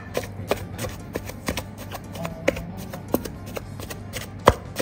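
Pestle pounding a sticky paste of minced beef, garlic, salt and sticky rice in a mortar, dull strikes at about two or three a second.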